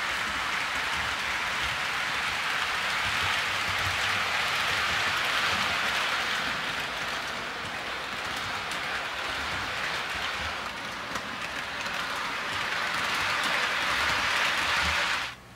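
HO scale model train cars rolling on sectional track, a steady rain-like hiss with faint low knocks from the wheels. It stops abruptly near the end.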